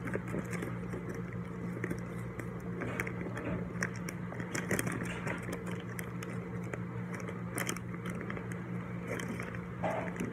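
Clear plastic bag crinkling and crackling in irregular bursts as fingers handle it.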